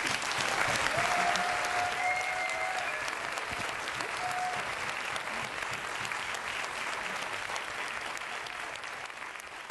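Audience applauding, a dense patter of many hands that starts abruptly and slowly tapers off near the end.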